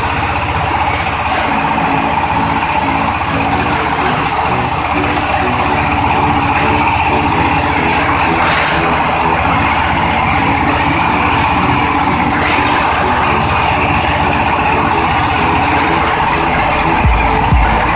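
Coconut husk coir-separating machine running steadily, a dense mechanical whirr with an engine-like hum, with a few heavier low thumps near the end.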